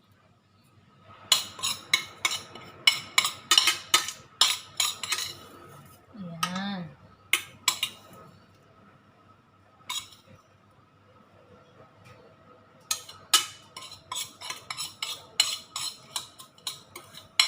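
A metal spoon clinking and scraping against a pan or baking dish while buttered breadcrumbs are spooned onto fish. The clinks come in quick runs of taps, one run early and another from about 13 s on, with a quieter gap between.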